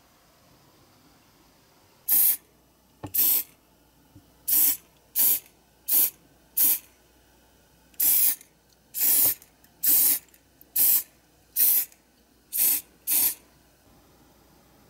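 Aerosol can of mould release agent sprayed in about thirteen short hissing bursts, each under a second long, with a faint click of the nozzle before one of them.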